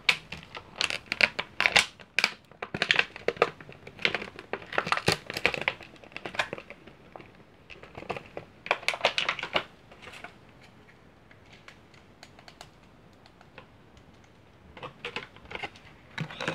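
Plastic packaging crinkling and crackling in handled bursts, with small clicks and rustles as a toy is pulled out of its clear plastic box. The crinkling is busiest for the first ten seconds, dies down for a few seconds, then starts again near the end.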